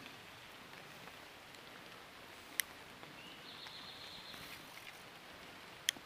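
Light rain falling on a creek, a faint steady hiss, with two sharp clicks about three seconds apart and a thin high tone for about a second midway.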